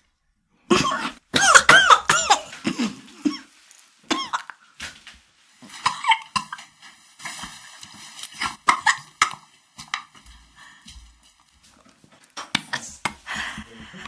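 A woman coughing and letting out pained, whimpering vocal cries in bursts, a reaction to the burn of super-spicy seaweed.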